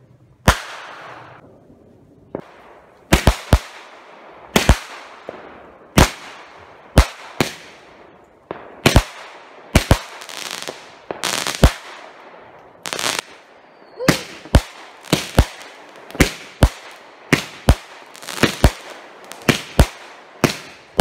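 Backyard consumer aerial fireworks going off: a string of sharp bangs, about one a second at first and coming faster, about two a second, in the second half, each trailing off briefly.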